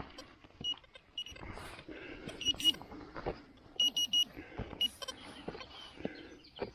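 XP Deus metal detector giving short high beeps, singly and in quick runs of two or three, signalling a target under the coil. Scattered knocks and rustling of handling lie beneath the beeps.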